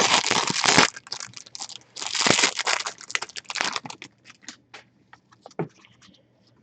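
Plastic-foil trading card pack wrapper crinkling and tearing in two bursts, followed by a run of light clicks and taps that die away near the end.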